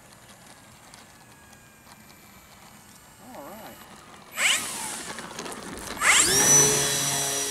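E-flite Air Tractor RC plane's electric motor and propeller throttled up for a full-power 'gun and go' takeoff. The whine rises sharply about four and a half seconds in, climbs again about six seconds in as the plane passes close by, and then holds at a steady high pitch.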